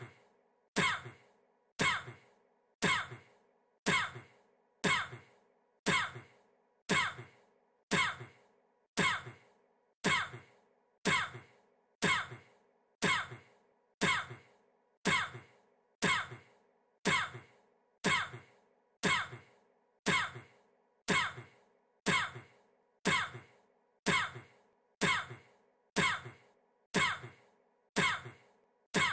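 A man's single short cough repeated about once a second in an even, unchanging loop, each cough sudden and dying away quickly.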